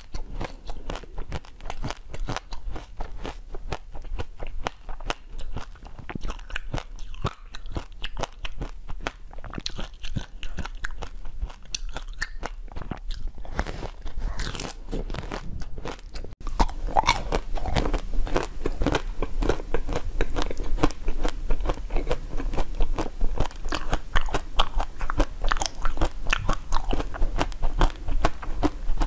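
Close-miked biting and crunching of frozen basil-seed ice balls: many crisp cracks between the teeth, with chewing. About sixteen seconds in there is a cut, and the crunching and chewing go on louder.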